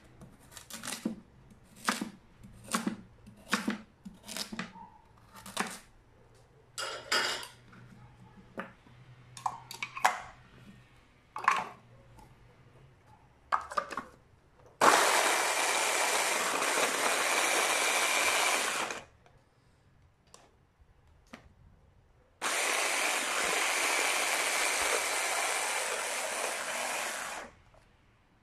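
A kitchen knife chopping a carrot on a cutting board, in irregular knocks about once a second. Then an electric hand blender with its chopper bowl runs twice, for about four and then about five seconds with a short pause between, chopping the carrot pieces. Each run starts and stops suddenly.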